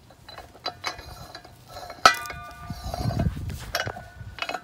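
Steel parts of an International Harvester 480 disc harrow gang clinking as the gang rod is worked through a disc blade, bearing and spool. A handful of light clinks, with one sharp clank about two seconds in that rings on briefly like struck steel.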